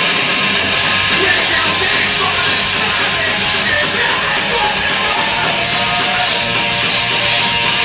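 A live rock band playing loud, dense music with no breaks.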